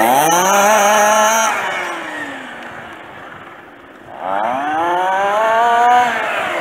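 Small petrol engine of a radio-controlled FG Käfer (Beetle) car revving up hard twice. The pitch climbs quickly, holds and then falls away; a second climb comes about four seconds in and holds near the end.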